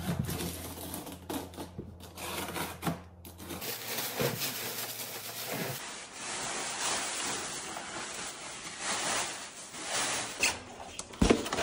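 Packaging being handled: a cardboard shipping box knocked and shifted, then plastic bubble wrap crinkling and rustling as a bubble-wrapped dress form is lifted out of the box, with scattered knocks.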